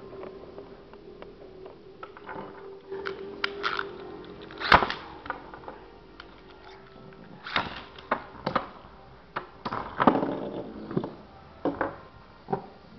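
Beyblade spinning tops knocking against each other and the plastic stadium: a run of sharp, separate clacks, the loudest about five seconds in, over a steady tone that fades out about halfway through.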